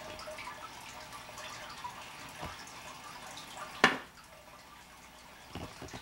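A broom dropped to the floor, its handle landing with one sharp knock about four seconds in, followed by two softer knocks near the end, over a faint steady background noise.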